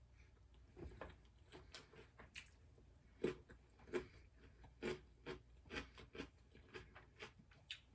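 Faint chewing with food in the mouth: soft, irregular wet clicks and smacks, about one or two a second.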